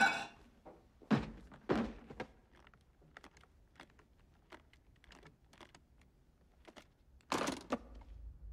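Two heavy thunks about a second in, then a run of small clicks as a thumb rolls the wheels of a briefcase's brass combination lock. Near the end, two louder clicks as the latches snap open.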